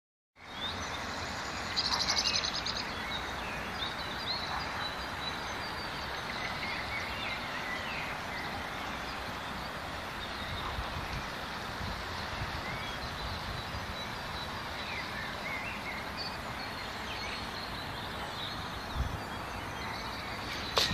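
Steady distant motorway traffic noise with birds twittering over it, and a louder rapid trill about two seconds in.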